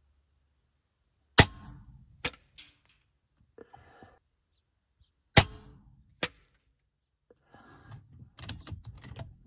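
Two shots from an RTI Prophet Performance .22 PCP air rifle firing slugs, each a sharp crack, the second about four seconds after the first. Each is followed just under a second later by a fainter knock, the slug striking the target downrange. Near the end there is light clicking and rustling from handling the rifle.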